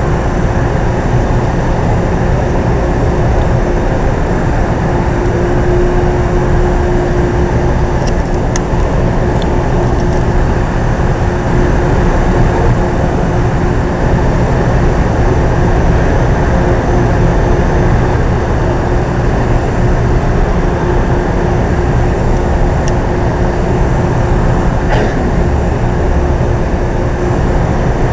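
Metro-North commuter train standing at a station platform, its onboard equipment giving a steady loud hum and rumble with one held tone running through it. A couple of faint clicks stand out.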